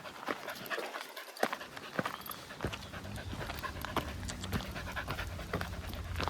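A dog panting, over a run of quick footfalls on the trail. A low rumble comes in about halfway through.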